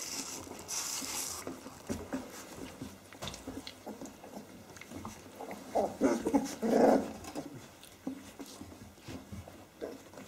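19-day-old Australian Kelpie puppies playing together, making small growls and whimpers over light scuffling. The loudest burst of their calls comes about six to seven seconds in.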